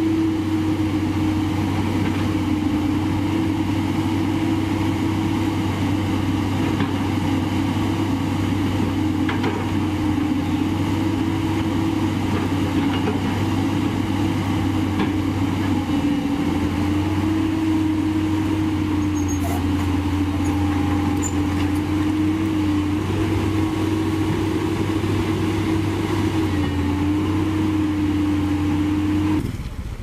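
JCB JS200 crawler excavator's diesel engine running steadily under hydraulic working load, its note dipping slightly a few times as the arm and bucket move, until it cuts off near the end.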